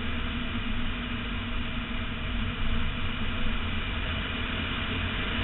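BMW E46 M3's S54 straight-six running at a steady pitch at speed, under a steady rush of wind over the exterior mirror-mounted camera and road noise from the wet track.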